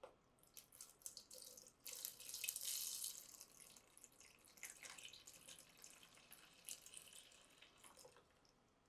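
Rust-remover liquid poured from a beaker into a plastic tub, splashing and trickling onto the bottom. The stream is heaviest about two to three seconds in, then runs lighter with a few splashes and stops near the end.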